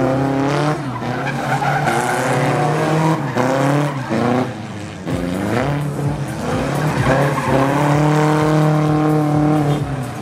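Small pickup truck engines revving hard through a tight slalom, pitch climbing and dropping again and again as the throttle is worked, with tyres squealing on the tarmac.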